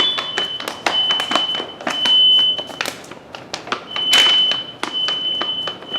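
Smoke alarm sounding after being set off with aerosol test smoke, and still going: a high electronic tone repeating in spells of about a second with short gaps. A scatter of sharp clicks and knocks runs under it.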